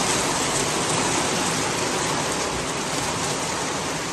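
Steady heavy rain pouring down, a dense even hiss of drops on the ground, easing slightly near the end.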